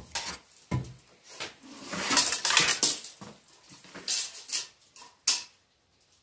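Clattering of tools and lumber being handled at a chop saw: a string of sharp clicks and knocks, with a longer rattle about two seconds in.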